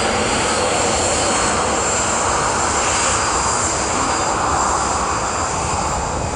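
Rolls-Royce Trent 700 turbofans of an Airbus A330-200 at takeoff thrust during the takeoff roll. A steady, loud roar with a thin high whine over it.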